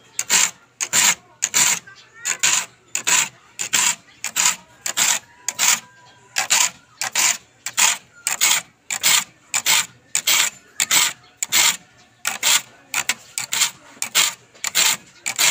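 A file rasping across the teeth of a hand saw clamped in a wooden vise, in short, even strokes at about three every two seconds: the saw is being sharpened tooth by tooth.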